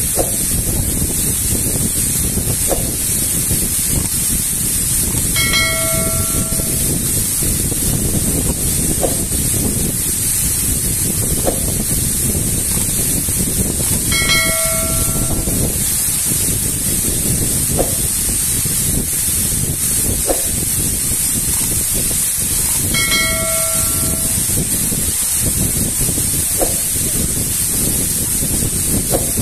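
Small waterfall pouring steadily into a shallow rocky pool. Three times, about nine seconds apart, a short bell-like chime rings over the water noise, the sound effect of the subscribe-button animation, with faint clicks between the chimes.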